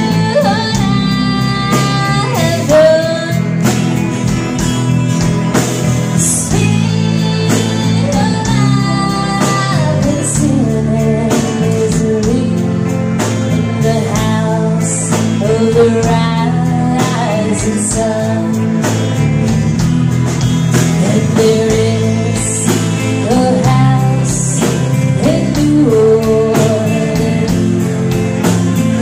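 Live band playing a song with a woman singing lead, backed by acoustic and electric guitars, keyboard and drums keeping a steady beat.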